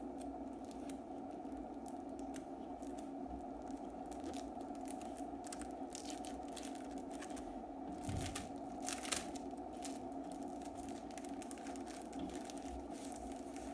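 Paper and plastic packaging rustling as it is handled and unwrapped by hand, with a few louder crackles about eight to nine seconds in, over a steady background hum.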